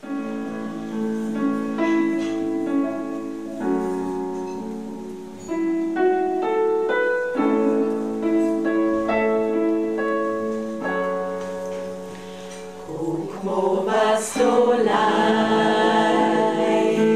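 Music of held chords that change every second or two; about 13 seconds in it swells up and turns fuller and louder.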